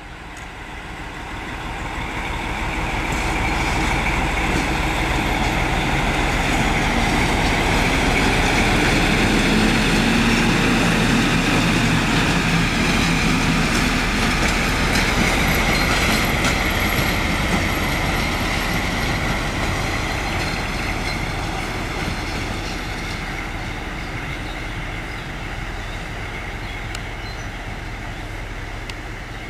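Railway locomotives passing at close range along station tracks. The sound builds over the first few seconds, stays loud for about fifteen seconds, then slowly fades as they move away.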